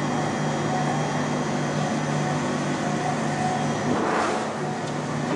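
Factory machinery running steadily with a low, pitched hum that cuts in and out, and a brief rush of noise about four seconds in.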